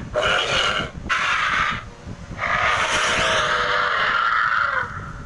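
Sinoceratops sound-effect calls, a designed dinosaur voice: two short rasping calls, then a longer call lasting about two and a half seconds.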